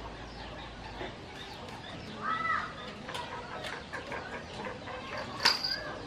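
A single clucking call from a fowl about two seconds in, over faint chirping of small birds, and one sharp click about five and a half seconds in as the wire bird cage is handled.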